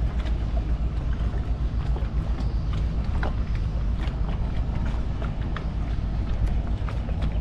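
Wind buffeting the microphone in a steady, heavy rumble, with scattered small clicks and ticks over it.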